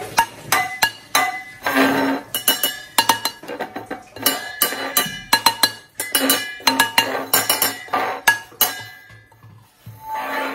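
A cup banged over and over, with quick, irregular clinks that each ring briefly. The strikes thin out near the end.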